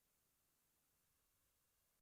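Near silence: faint hiss between pieces of music.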